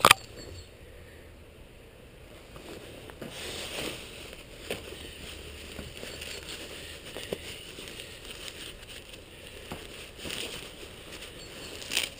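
Faint rustling and crackling with scattered small clicks and knocks, opening with one sharp click.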